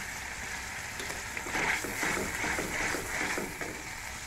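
Onion-and-spice masala sizzling in oil in a metal karai, with a steel spatula stirring and scraping the pan in strokes about two or three a second from about a second and a half in.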